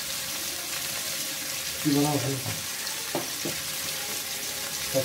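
Onion, tomato and spices frying in oil in a kadai, with a steady sizzle. Two sharp knocks a little after three seconds in.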